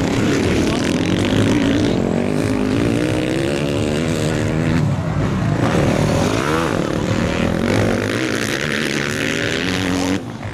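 Motocross bikes' engines revving hard as riders race past close by, the pitch rising and falling with the throttle. Near the end the sound drops sharply to a quieter, more distant level.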